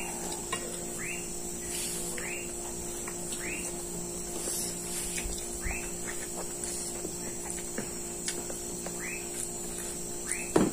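Steady high trill of insects with short falling chirps repeating about once a second, over a low steady hum. One sharp knock or clink comes near the end.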